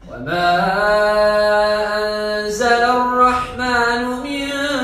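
Man's voice reciting the Quran in melodic tajwid style, with long drawn-out held notes. The pitch steps up slightly about halfway through.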